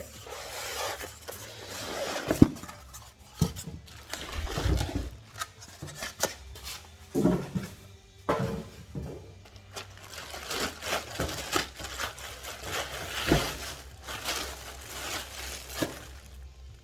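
Packaging being handled as a subwoofer is unboxed: irregular rustling and scraping, with a few sharp knocks.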